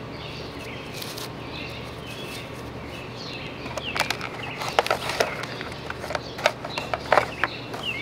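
Small birds chirping over a steady low outdoor background. From about four seconds in come irregular crinkles and clicks of plastic packaging being handled.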